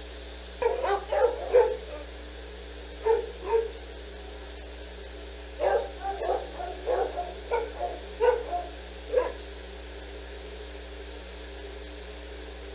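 Dog barking in bursts: a quick string of barks about a second in, two more around three seconds, then a longer run of barks from about six to nine seconds, over a steady low room hum.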